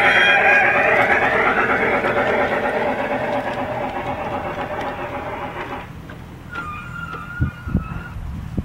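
Electric garden-railway model train rolling past: a dense running rattle of wheels on the track with a gliding whine. It fades as the train moves away and stops abruptly about six seconds in, followed by a faint wavering high tone and a few low thuds near the end.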